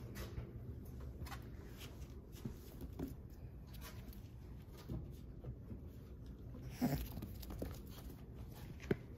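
American Bully puppies playing: faint scuffling and paw patter on a blanket and hard floor, with a few small puppy noises and sharper knocks, the loudest about seven seconds in.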